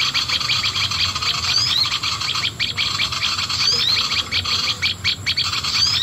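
Bird-call lure recording played from an MP3 speaker: a fast chattering of bird calls, with a short rising whistle repeating about every two seconds.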